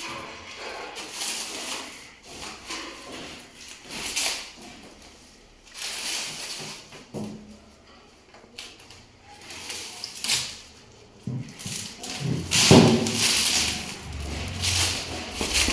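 Clear plastic stretch wrap crinkling and rustling in irregular bursts as it is pulled off a stiff acrylic sheet, loudest near the end.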